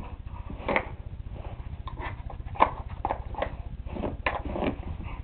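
Pieces of a dog's treat puzzle knocking and clacking as the dog noses and paws at them to get at the treats, about a dozen irregular knocks.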